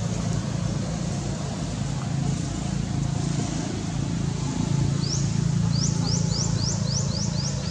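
A steady low drone, and from about five seconds in a quick run of about eight high rising chirps from a small animal.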